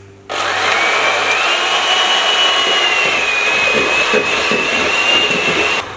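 Small, old electric mixer running as it beats softened butter in a bowl: a steady motor whine that rises slightly in pitch as it gets up to speed, starting just after the beginning and cutting off shortly before the end.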